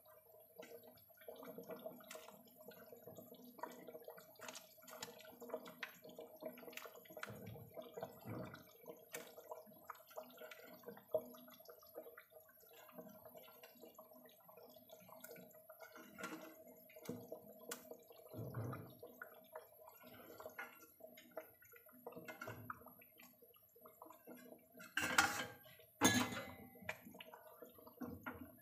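Fish pieces being put into simmering masala gravy in a steel kadai: soft wet plops and bubbling of the curry, with scattered small clicks over a faint steady hum. Near the end come two sharp metal clinks about a second apart.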